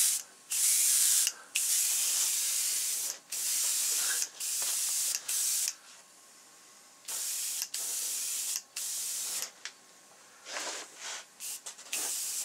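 Airbrush spraying paint, a thin hiss of compressed air in many short bursts as the trigger is pressed and released, with a couple of longer pauses.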